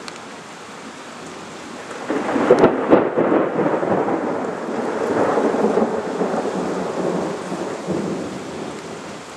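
Thunder: a rumble that swells about two seconds in with sharp cracks near three seconds, rolls on, and fades near the end, over a steady background hiss.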